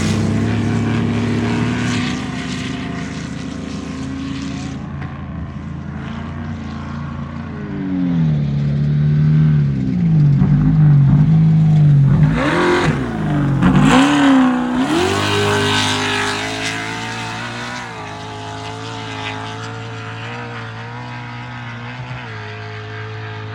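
Off-road race vehicle's engine going by at speed, its revs rising and falling sharply, loudest about ten to fourteen seconds in, then settling to a steadier, quieter note as it moves off.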